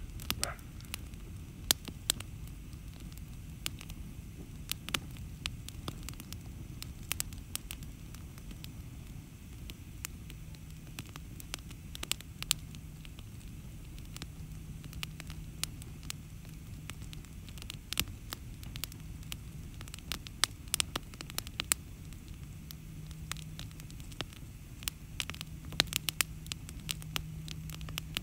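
Open wood fire of split logs and branches burning, crackling with frequent sharp pops and snaps over a steady low rush of flame.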